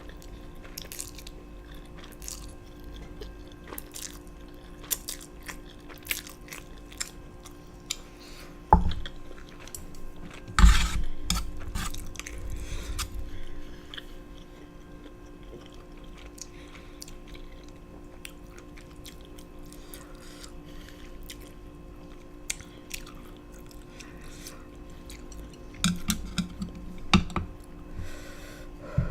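Close-miked chewing and wet mouth sounds from eating spicy black bean noodles and fried dumplings, many small clicks and smacks. Two louder knocks about nine and eleven seconds in, and a busier patch near the end.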